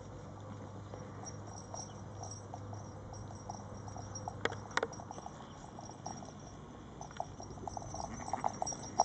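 Boston terrier puppies at play, giving many short little yips and grunts that come thicker and louder near the end. Two sharp clicks about halfway.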